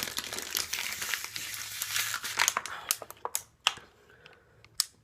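Thin plastic water bottle crinkling and crackling as it is squeezed and collapses during fast drinking. The crackling is dense for about the first three seconds, then thins to a few sharp clicks.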